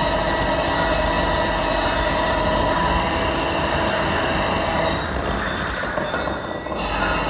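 Electronic noise music: a dense, harsh wash of noise with several sustained screeching tones held over it. The highest part thins out about five seconds in.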